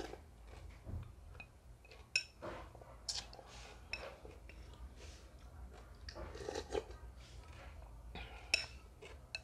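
Eating Khmer rice noodle soup with chopsticks: chewing and slurping sounds in short bursts, with a couple of sharp clinks of the chopsticks against the ceramic bowl.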